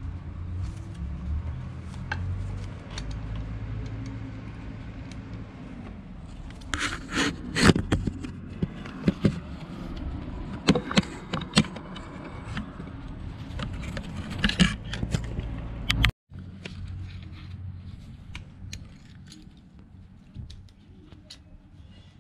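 Metal tools and parts clinking and scraping in a scatter of sharp clicks over a steady low hum. The sound cuts out abruptly about sixteen seconds in and comes back quieter.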